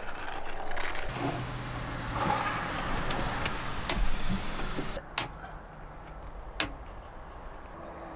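Cordless drill driving screws through a plywood sheet into a wooden frame, its motor running in spurts for the first few seconds. After it stops, two sharp clicks.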